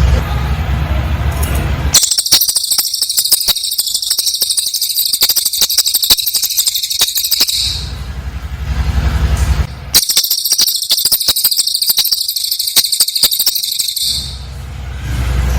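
Cililin bird singing in two long bursts of rapid, very high-pitched trilling, tight rapid-fire song ('nembak rapat'): the first from about two seconds in to nearly eight, the second from about ten to fourteen seconds. A low hum fills the pauses between them.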